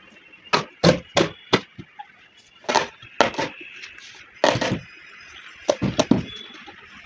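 A dozen or so sharp knocks at uneven spacing, some coming in quick pairs or threes.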